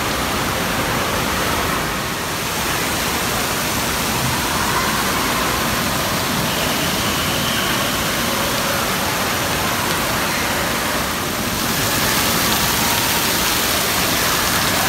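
Steady rushing and splashing of water from water-park fountains and falling water features, with faint voices in the background.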